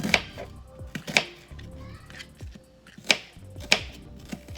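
Kitchen knife slicing through an onion and striking the cutting board, about five separate strokes at an uneven pace, with quiet background music underneath.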